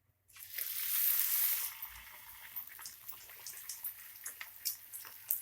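Marinated chicken kebab pieces deep-frying in hot oil: a loud sizzle rises about a third of a second in, then after a second or so settles into steady sizzling with scattered pops and crackles. The sputtering is water in the chicken cooking out, which dies down once the pieces are fully fried.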